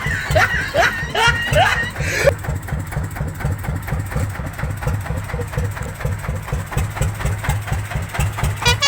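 Dongfeng 33 hp single-cylinder diesel engine of a small dump truck running steadily with an even chugging beat. For the first two seconds, voices are heard over it.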